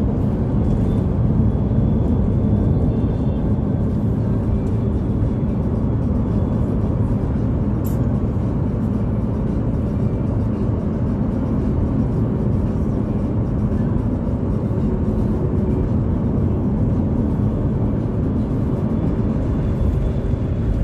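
Steady road noise heard from inside a car moving at highway speed: tyres on asphalt and rushing air over a low engine hum.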